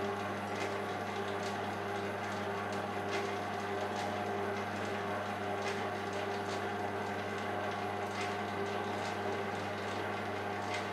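Maxima MSM8 spiral mixer running at its single fixed speed with a steady motor hum and faint irregular ticks, turning the flour as the first water is poured in at the start of mixing.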